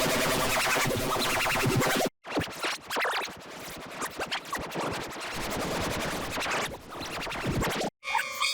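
Heavily processed, distorted audio effect with an electronic, scratch-like music sound. It cuts out abruptly about two seconds in, restarts with a different texture, and cuts out again near the end.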